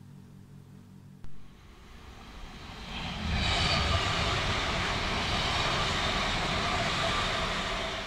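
Copenhagen S-train, an electric commuter train, passing at speed close by. Its rushing run-by noise builds from about two seconds in, holds loud through the middle and starts to fade near the end. A single short knock comes about a second in.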